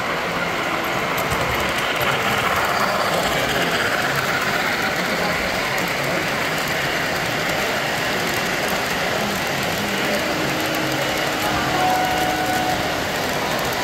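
Three-rail O gauge model steam train and its string of cars rolling past on the track: a steady clatter of metal wheels on the rails, a little stronger as the cars go by close about halfway through.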